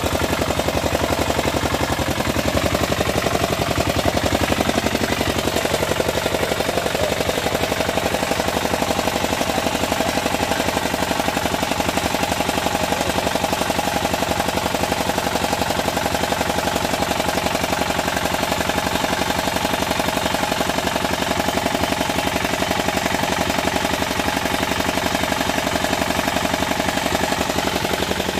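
Single-cylinder diesel engine of a two-wheel hand tractor running steadily, with a rapid, even beat of firing strokes.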